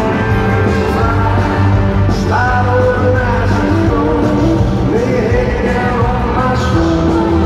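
Live country band playing through a concert sound system, with a lead vocal coming in about two seconds in and holding long sung notes.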